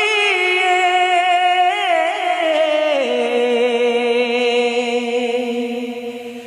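Wordless vocal in a Punjabi naat, held as long sustained notes with vibrato, stepping down in pitch about three seconds in and easing off near the end.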